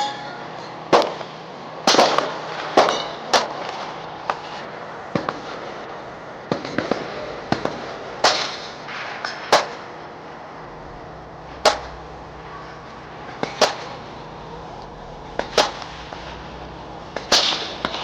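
Gunfire from several firearms on a shooting range: sharp single shots at irregular intervals, about one every second or two, from different guns rather than one steady string.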